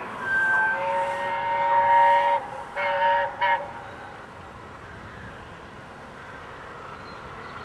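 Steam locomotive whistle on LNER A1 Pacific 60163 Tornado: one blast of about two seconds sounding several tones together, followed by two short blasts, then the train's running noise continues at a lower level.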